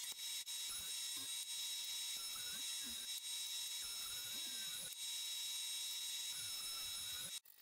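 Grizzly combination jointer-planer running with a steady high whine while a board is fed over the cutterhead for face jointing. The sound cuts off suddenly near the end.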